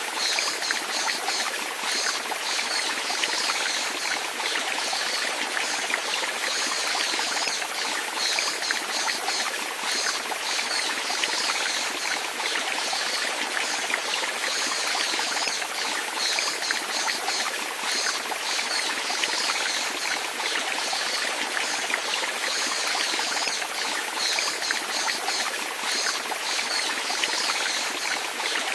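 Steady flowing water, a stream running and trickling without break.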